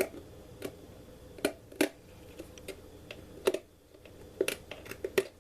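Knife blade scraping moulding flashing off the inside of a plastic USB/12V socket panel: a series of short, irregular scrapes and clicks, with a brief pause just after the middle.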